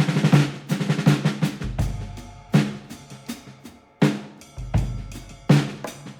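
Background music with a drum-kit beat: sharp snare and bass drum strikes over held low bass notes.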